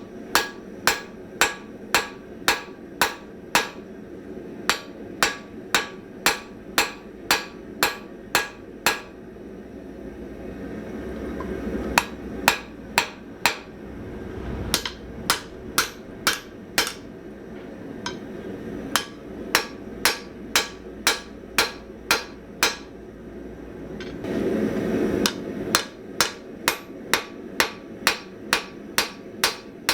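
Hand hammer forging spring steel on an anvil: sharp, ringing blows at about two to three a second in steady runs, broken twice by short pauses.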